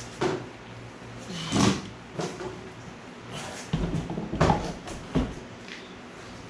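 Handling noises while battery leads are moved over to a 12-volt battery: a string of irregular knocks and scrapes, busiest about four to five seconds in.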